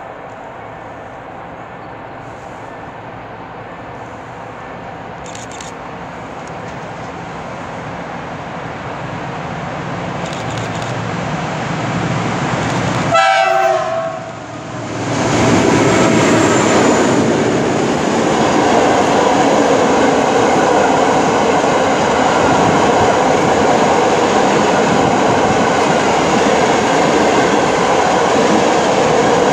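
Diesel freight train hauled by a 15D locomotive with a TEM2 approaching, its engine rumble growing steadily louder. There is a short horn blast about halfway through, then the steady loud rolling noise of the open hopper wagons running past close by.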